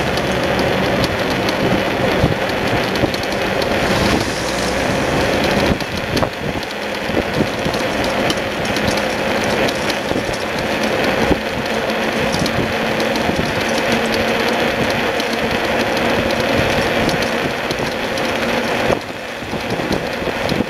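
Wheeled pet trailer rolling over pavement: a steady rolling rumble with continuous fine rattling. The rattling dips briefly near the end.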